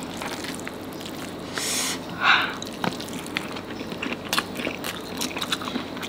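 Close-miked eating by hand: fingers kneading rice soaked in curry sauce, then a mouthful taken off the fingers and chewed wetly, with many small mouth and lip clicks. A short louder slurp or rush of breath comes about two seconds in.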